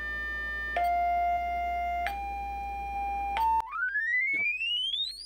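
Sine-wave test tone from the radio kit's LM386 audio amplifier as the input frequency is raised. It holds steady pitches that jump higher a few times, then about three and a half seconds in turns to a smooth, continuous rising whine.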